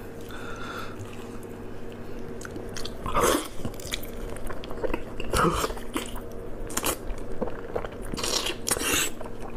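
Close-up chewing and biting of pork knuckle skin, with louder bites at irregular intervals every second or two.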